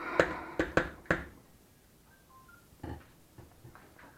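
Long metal spoon knocking against the steel pot while stirring thick zucchini puree: four or five sharp clacks in the first second or so, then a few fainter knocks.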